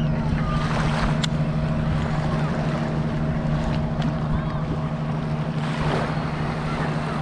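A steady low motor hum, typical of a boat engine running offscreen on the inlet, over small waves lapping at the water's edge and wind on the microphone. A few short faint chirps and a single sharp click come through above it.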